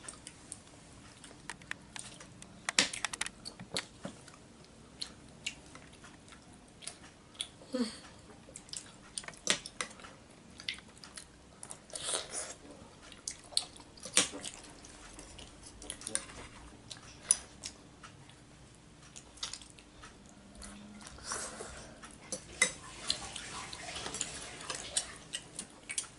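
Close-miked chewing and eating of beef-rib meatballs in soup, with scattered short clicks and mouth smacks.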